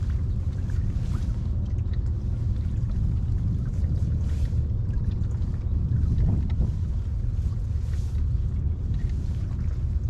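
A boat engine running steadily, a low drone with a slight swell about six seconds in.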